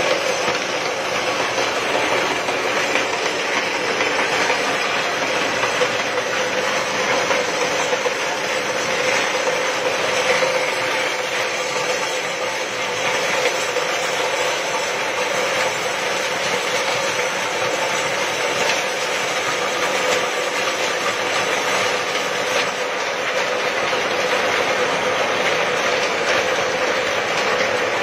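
Organic-waste pulping blender machine driven by a 1.5 hp electric motor, running steadily: a dense, continuous mechanical noise with a steady hum.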